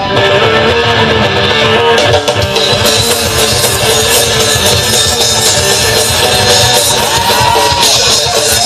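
Live three-piece band playing amplified electric guitar, bass guitar and drum kit together in a continuous instrumental passage.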